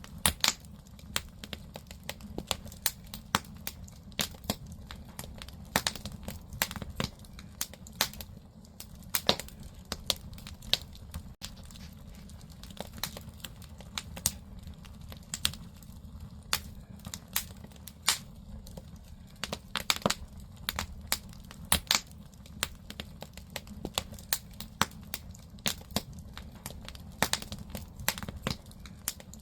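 Firewood burning in an agungi, the wood-fired firebox of a Korean ondol floor: irregular sharp pops and crackles, several a second, over a steady low rumble from the fire.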